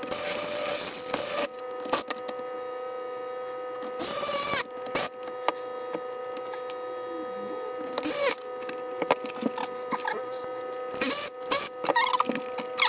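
A cordless power driver whirring in several short bursts, the longest at the start, with small knocks and clicks of plastic fairing parts being handled between. A steady hum with a fixed pitch runs underneath.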